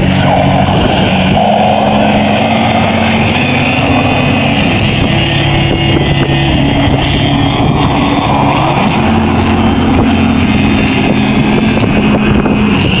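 Slow, heavy, distorted doom-metal music blaring from a pickup truck's aftermarket stereo, through speakers set out on the truck's roof and back. Sustained chords shift every couple of seconds.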